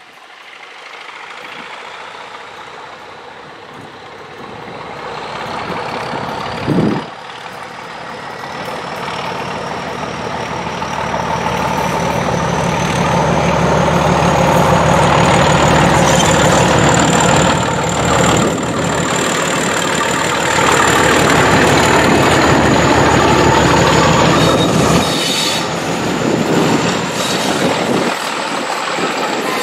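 British Rail Class 31 diesel locomotive with its English Electric V12 engine working hard under power as it approaches and passes, growing steadily louder, with a high whine rising in pitch. A single thump comes about seven seconds in, and near the end the coaches' wheels clatter past.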